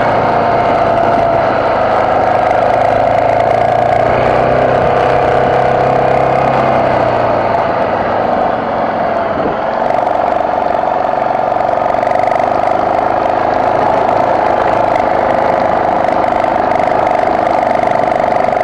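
BMW F650GS motorcycle engine running steadily while riding uphill off-road. Its note wavers in pitch in the first few seconds, sags briefly about halfway through as the throttle eases, then holds steady again.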